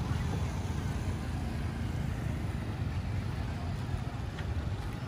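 Street traffic dominated by motorbikes and scooters riding past: a steady mix of small engines and road noise.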